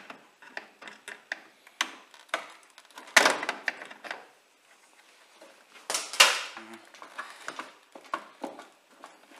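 Plastic clicking and rattling of wiring plug connectors being worked and tugged at on an AEG Lavamat washing machine's control board, with louder clattering about three seconds in and again about six seconds in.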